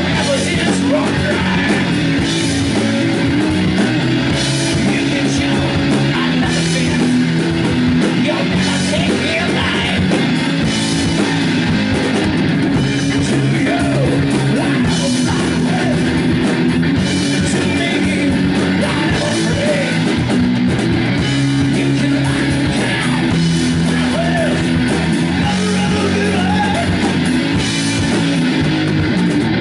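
Live rock band playing loud: electric guitar, bass guitar and drum kit, with a man singing.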